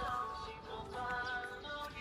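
Background music: a melody of held notes moving from pitch to pitch.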